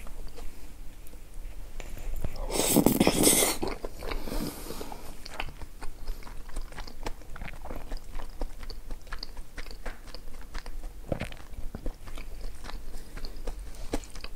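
Close-miked chewing and biting, with many short wet mouth clicks and some crunching. About two and a half seconds in there is a louder noisy burst lasting about a second.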